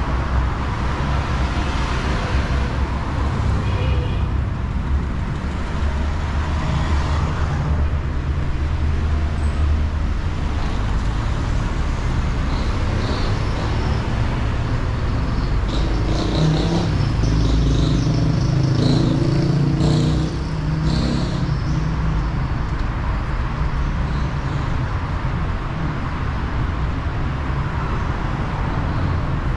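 Steady traffic on a busy city street: cars running past in a continuous rumble, louder for a few seconds just past the middle, with a few short high-pitched sounds then.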